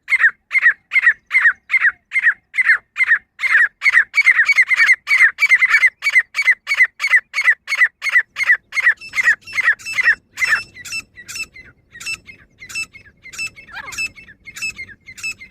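Female grey francolin calling: a long run of short, sharp, evenly repeated notes at about three a second that speeds up to about four a second midway. Near the end the notes turn quieter and thinner.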